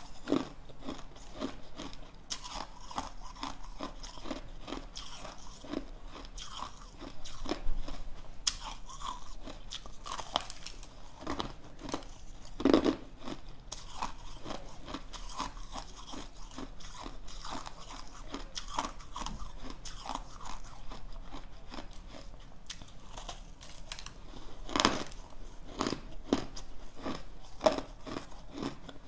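Crunching and chewing of compacted shaved ice being bitten off in chunks: a steady run of small crackling crunches, with louder single bites about halfway through and again near the end.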